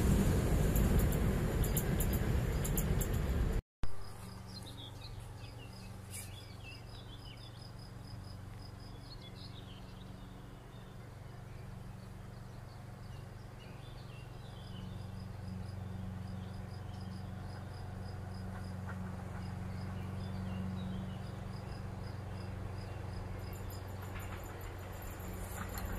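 A loud rushing noise fades away over the first few seconds and cuts off. Then birds chirp and insects buzz over a steady low hum.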